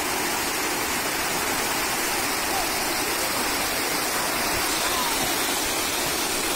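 Water rushing and foaming down a shallow stone-lined garden cascade channel, a steady, even rush of splashing water.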